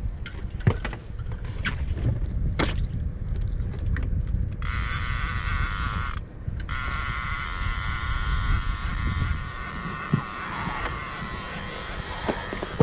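Fishing reel's drag buzzing as a hooked blue catfish pulls line: a high buzz sets in about four and a half seconds in, breaks off for half a second, then runs on and fades out by about ten seconds. A low rumble runs underneath throughout, with a few knocks in the first seconds.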